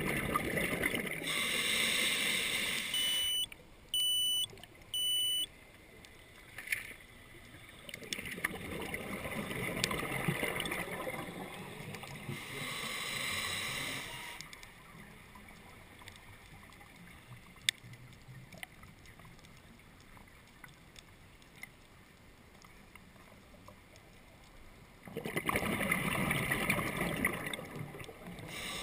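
Scuba diver breathing through a regulator underwater: exhaled bubbles rush out in long surges, with quieter stretches between breaths. A few short electronic beeps sound about three to five seconds in.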